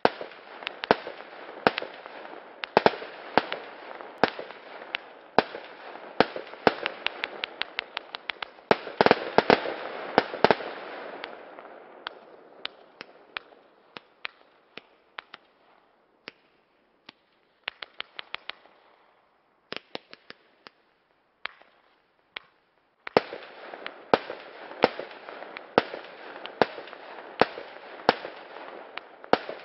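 A 132-shot consumer firework battery firing in fanned volleys: rapid sharp bangs over a continuous crackling hiss, densest about nine seconds in. The shots thin out to scattered single bangs with short silences, then a dense run of bangs resumes about twenty-three seconds in.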